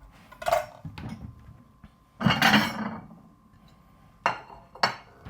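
Kitchenware knocking and clinking: a few sharp knocks, with a longer clatter about two seconds in.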